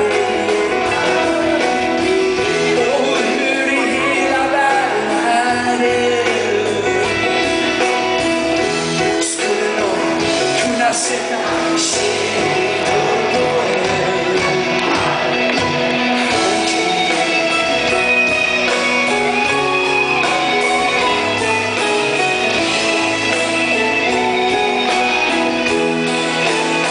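Live rock band playing: electric guitars, bass and drums with a male lead vocal, heard from the audience in a large hall.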